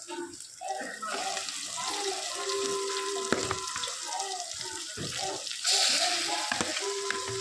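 Kitchen tap running into a sink, the water louder for a moment about six seconds in.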